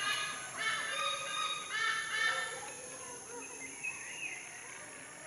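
Crow cawing: three harsh calls in the first two and a half seconds, followed by fainter bird chirps.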